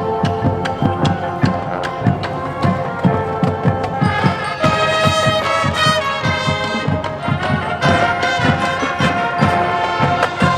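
Marching band playing: brass sustaining chords over a steady drumline beat, with a bright, busy brass passage about halfway through.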